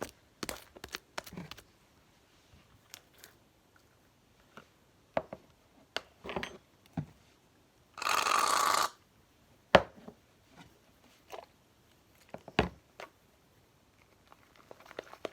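Slime being worked by hand: scattered small clicks, taps and squelches, with one short hissing burst lasting just under a second about eight seconds in.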